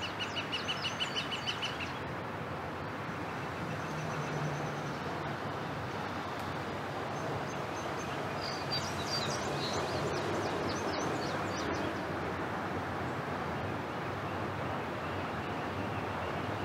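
Norfolk Southern freight train rumbling in the distance, a steady noise. Birds chirp over it: a quick run of chirps at the start and more chirps a little past the middle.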